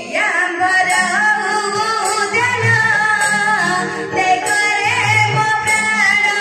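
A voice singing long, wavering notes over a steady drone and instrumental accompaniment: a song of Odia Ramanataka folk theatre.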